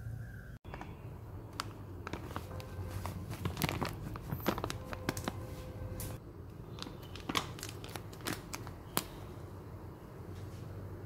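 Kitchen handling noises while flour is added to a glass mixing bowl: an irregular run of light clicks and taps with crinkling, like a flour packet and utensils being handled, over a low steady hum.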